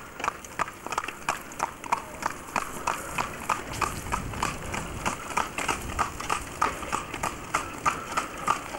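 Hooves of a New Forest pony drawing a four-wheeled carriage on a tarmac road: a steady clip-clop of about four hoofbeats a second, with a low rumble about halfway through.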